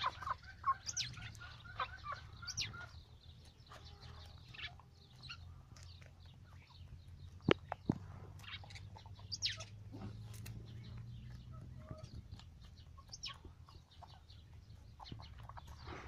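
Heera aseel hen clucking softly while foraging, the calls mostly in the first few seconds, with short high chirps scattered through. Two sharp knocks come a little after seven seconds in.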